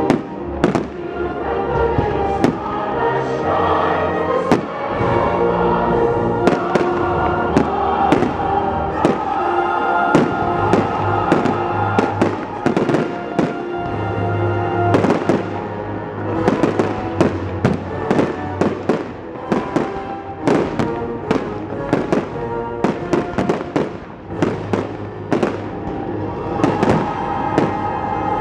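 Aerial fireworks shells bursting one after another over music accompanying the display; the bangs come much faster and denser from about halfway through.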